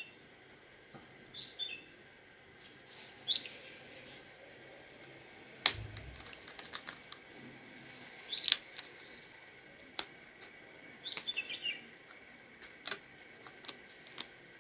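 Small birds chirping now and then, in short falling chirps, over scattered sharp clicks and taps, with a dull low thump about six seconds in.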